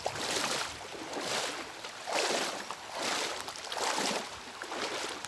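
Rubber boots wading through shallow floodwater, a slosh with each step about once a second.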